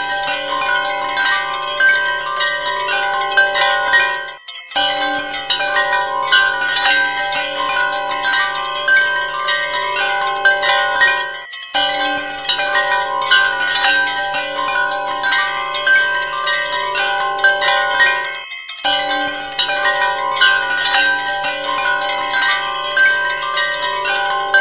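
Temple bells ringing continuously, many bell tones clanging together, with brief breaks about every seven seconds.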